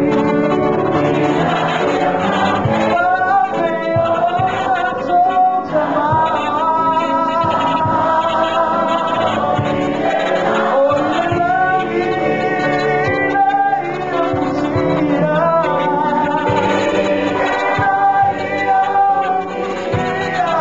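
A choir singing, several voices together in harmony.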